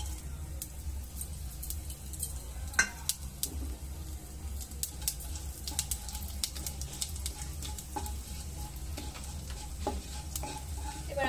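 Whole spices (cumin seeds, dried red chilli, bay leaf, cardamom, cloves, cinnamon) sizzling in hot oil in a nonstick wok while a spatula stirs them: the tempering (phoron) being fried. Scattered sharp crackles and spatula taps run through it, one louder click about three seconds in, over a steady low hum.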